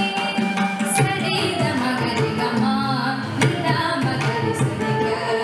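A woman singing a Carnatic keerthanam, her voice bending through melodic ornaments, with a mridangam drum playing along in sharp strokes.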